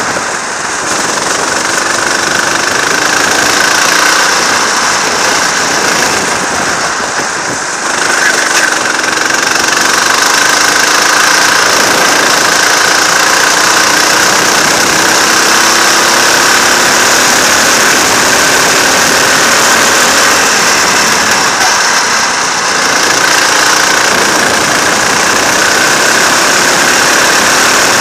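Go-kart engine running hard on a lap, heard from on board, its note sliding up and down as the kart brakes for corners and accelerates out of them, with brief dips in loudness a few times.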